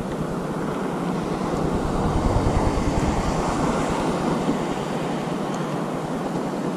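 Steady wind buffeting the microphone, a low rushing rumble, over the wash of sea waves around the kayak.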